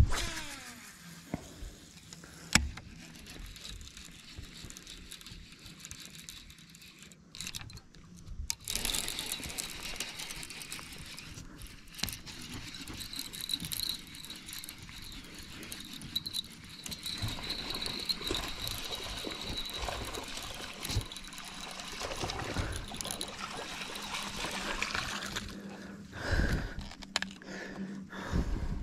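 Baitcasting fishing reel: sharp clicks and a falling whir near the start, then a long stretch of noisy reel cranking and water sounds while a largemouth bass is fought and landed, with a few louder bursts near the end. A steady low hum runs underneath.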